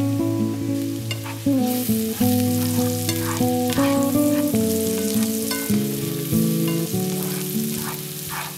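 Chopped red onion sizzling in a frying pan, the sizzle picking up about two seconds in as a spatula stirs and scrapes through it. Background music with sustained, plucked-sounding notes plays throughout.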